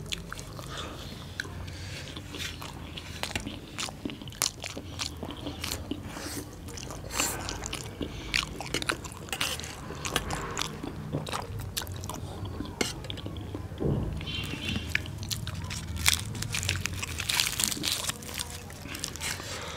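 Close-up eating sounds of two people biting, chewing and tearing bhature (puffy deep-fried bread) dipped in chole curry: a dense run of small crisp clicks and wet mouth noises. About two-thirds of the way through there is a dull bump.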